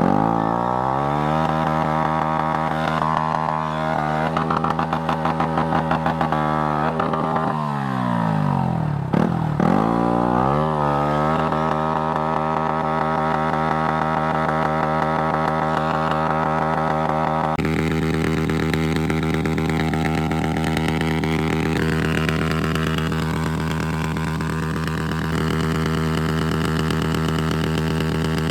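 Motorcycle engine running under way. Its pitch drops and climbs back up three times in the first ten seconds or so as the revs fall and pick up again, then it holds a steady speed.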